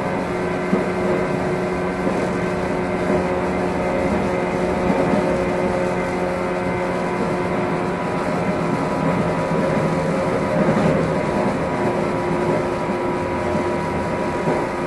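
Running sound inside a JR 115-series electric train's motor car: the MT54 traction motors and gearing whine at a steady pitch over the rumble of the wheels on the rails, the train cruising at an even speed.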